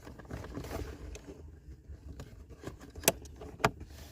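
Light clicks and small handling noises of a plastic OBD bracket and dash trim being pressed and handled by hand, over a faint low hum. There are two sharper clicks about three seconds in and half a second later.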